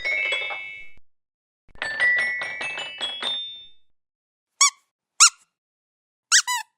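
Toy sound effects: a cluster of ringing bell-like tones, then a quick run of tinkling chime notes. In the second half come four short squeaks like a rubber squeeze toy, the last two in quick succession.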